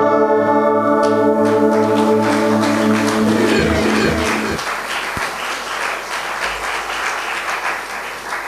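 Audience applauding while the band's held closing chord rings on, the chord stopping about halfway through; the clapping carries on alone and slowly fades.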